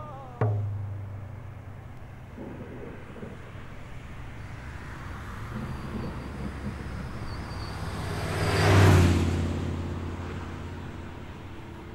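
One drum beat just after the start, then the steady hum of highway traffic with a single vehicle passing close by, swelling to its loudest about nine seconds in and fading away.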